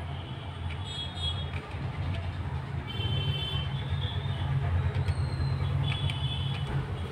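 A steady low rumble that grows a little louder about three seconds in, with a few brief high-pitched tones over it.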